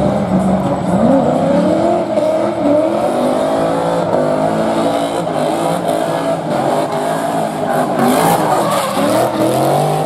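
BMW E30 drift car engines revving hard, rising and falling again and again as the cars slide sideways, over the hiss of spinning tyres. About eight seconds in, a loud burst of tyre noise covers the engine.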